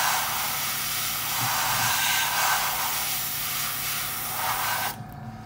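Airbrush spraying paint in a steady hiss, which cuts off suddenly about five seconds in.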